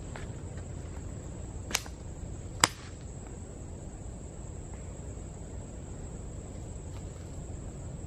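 Steady high-pitched chorus of night insects such as crickets over a low background rumble. Two sharp clicks a little under a second apart, the second louder.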